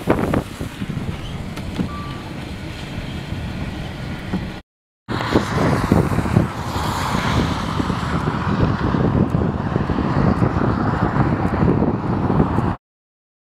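Wind buffeting the microphone together with road noise from a car going by. The noise drops out for a moment about five seconds in, returns as gusty wind noise, and cuts off about a second before the end.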